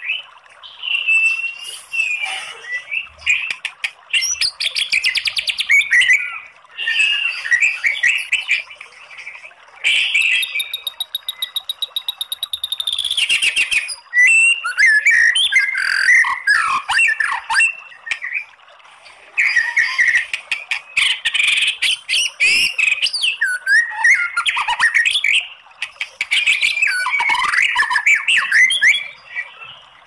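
White-rumped shama singing: a string of loud, varied whistled phrases separated by short pauses, with fast rattling trills (the 'kretekan') about a third of the way in and again around the middle.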